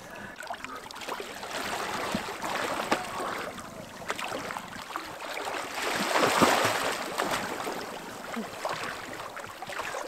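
Water splashing and churning as two swimmers wade in and swim, loudest about six to seven seconds in.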